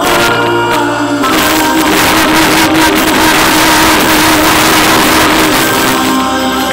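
Three singers, two men and a woman, with a live band holding the long final note of a song, while the audience bursts into loud applause and cheering about a second in.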